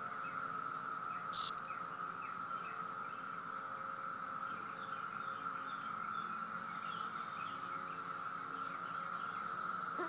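Steady high drone of a periodical cicada chorus, with one short, harsh buzz about a second and a half in from the poked periodical cicada protesting at being touched.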